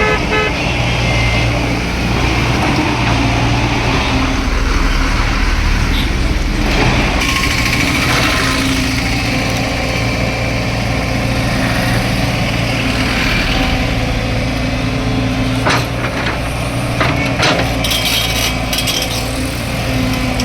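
Heavy diesel engine of an earthmoving machine running steadily under work, with a few sharp knocks near the end.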